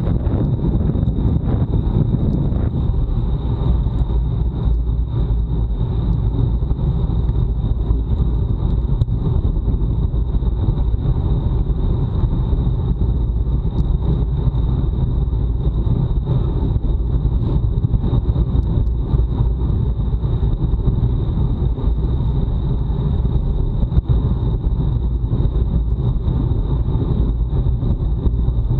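Steady wind rumble over an action camera's microphone, mixed with road noise from a bicycle at race speed, with a constant thin high whine over it.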